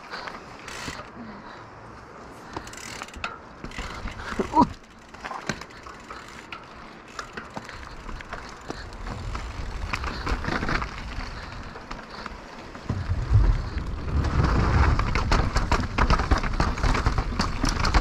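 Mountain bike ridden along a dirt trail: tyres running over dirt and stones, with the chain and frame rattling in quick clicks. Near the end it gets much louder, with a heavy low rumble of wind and tyres.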